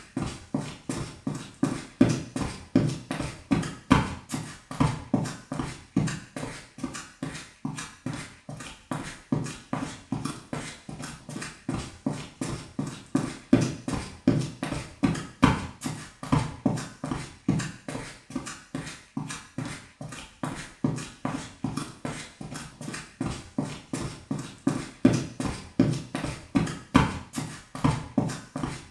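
Quick footsteps running on a wooden floor: a fast, even rhythm of hollow thuds, about four steps a second.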